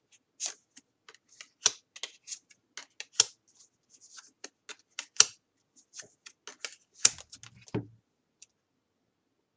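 Tarot cards being handled and laid on a table: a run of light, irregular clicks and taps, with a duller knock about eight seconds in.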